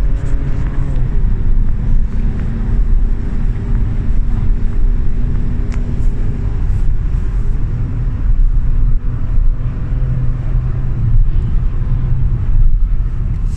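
Holden Commodore VXR engine running hard at high revs on a racetrack hot lap, heard from inside the car together with road and tyre noise; the engine note dips about a second in and then holds.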